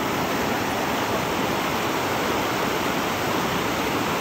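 River rapids rushing steadily over rocks: a continuous, even roar of whitewater.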